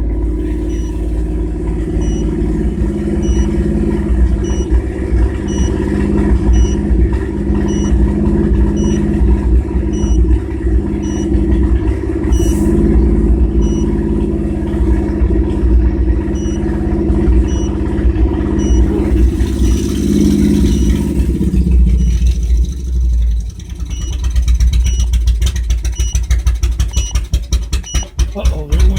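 GMC Jimmy's 4.3-litre V6 running steadily at about 2,000 rpm with a misfire. About 22 s in the engine note drops, and near the end a fast, quickening clatter takes over.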